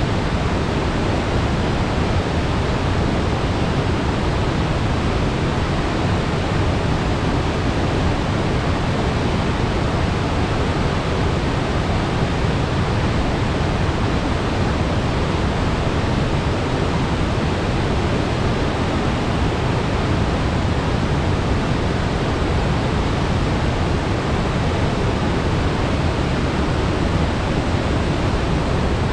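Steady, loud rushing of river water pouring over a waterfall, an even roar with no breaks.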